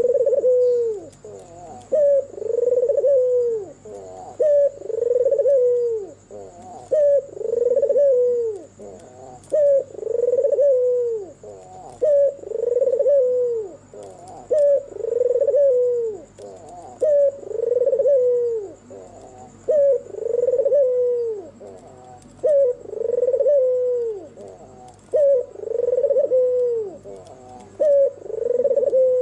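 White red-eyed (albino) puter dove cooing, its display call repeated about every two seconds: each call is a short note followed by a longer, falling coo. A faint steady high-pitched whine runs underneath.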